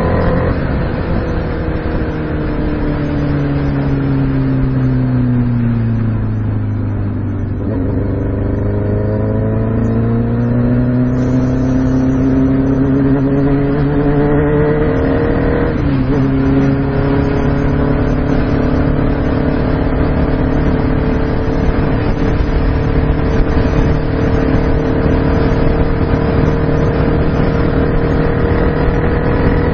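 2006 Kawasaki ZX6R 636's inline-four engine under way: its pitch falls for about seven seconds as the bike slows, then climbs as it accelerates. Just past halfway an upshift drops the pitch sharply, and it then holds a steady cruise.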